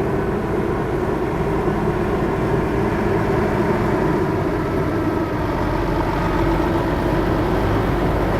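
Steady, loud engine rumble of a vehicle running, even and unchanging.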